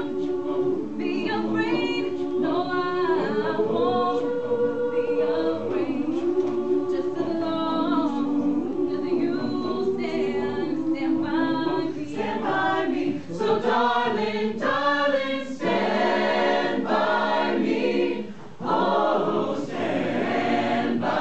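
A small choir singing unaccompanied, with long held notes and chords.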